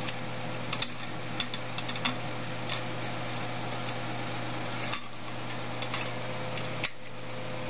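Small clicks and taps of pliers and heavy wire against the engine's metal parts, a handful spaced irregularly, over a steady background hum.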